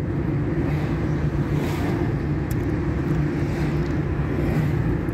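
Steady engine and road noise inside a moving car's cabin: a low, even hum with tyre rumble.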